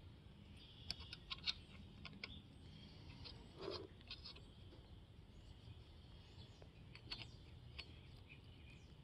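Near silence over low room hum, with a few faint metal clicks and ticks as head nuts are threaded by hand onto the cylinder-head studs of a two-stroke dirt bike engine.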